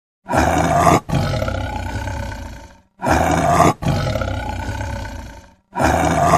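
A recorded lion roar sound effect played on a loop: the identical roar sounds three times, about every two and three-quarter seconds. Each roar is a loud burst with a brief break, then trails off over a couple of seconds.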